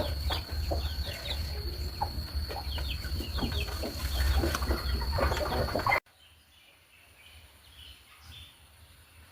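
Chickens clucking in quick, overlapping calls over a steady high-pitched whine. About six seconds in, it all cuts off abruptly to a faint background.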